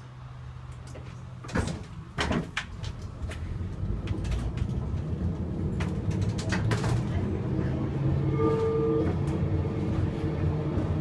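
Gotha T57 tram pulling away under power: a steady low electrical hum, then from about a second and a half in a series of clunks and clicks as the driver notches up the crank controller. The low rumble of the traction motors and wheels on the rails grows louder as the tram gathers speed.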